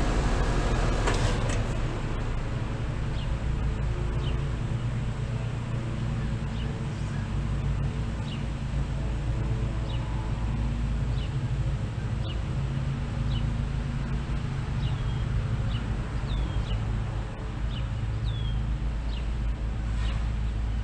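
A 2018 Bryant Preferred Series air conditioner's outdoor unit shutting off: about a second in there is a sharp click and the steady hum of the Copeland scroll compressor and condenser fan drops away. A low rumble carries on afterwards, with short bird chirps scattered through it.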